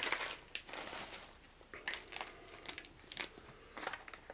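Plastic fishing-lure packaging crinkling and clicking in short, irregular bursts as packages are handled and set down on a tabletop.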